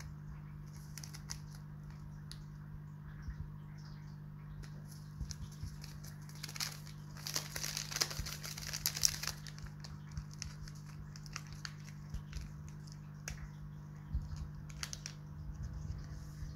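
Small sachets of pH buffer powder crinkling as they are handled, with a louder stretch of crinkling and tearing a few seconds in as one sachet is torn open. A steady low hum runs underneath.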